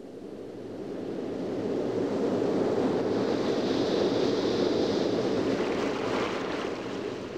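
A rushing noise that builds over the first few seconds, holds, then eases slightly near the end.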